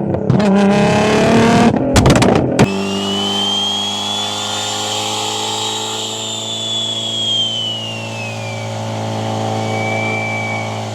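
Turbocharged car engine revving up, then a quick fluttering chatter about two seconds in as the throttle closes. It then settles into a steady engine note with a high whistle that rises and falls.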